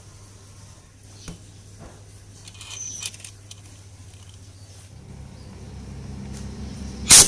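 Metal parts being handled with faint clicks while the magnet rotor is fitted onto a motorcycle crankshaft, then one loud, sharp metallic knock near the end from the tool on the crankshaft end. A low steady hum comes in about five seconds in.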